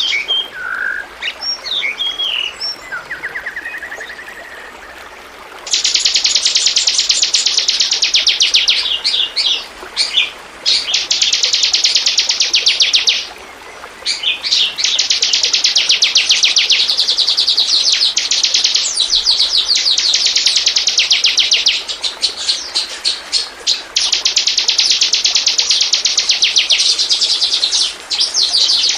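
Bar-winged prinia (ciblek) singing: scattered chirps at first, then from about six seconds in, long, fast chattering trills of several seconds each, broken by short pauses.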